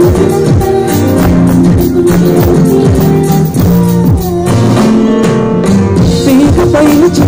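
Loud music with a steady booming bass-drum beat, about two beats a second, under held melody notes.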